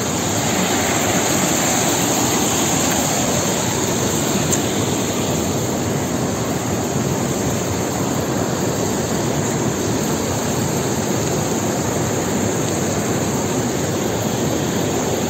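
Steady rushing noise, even and unbroken, with no distinct events.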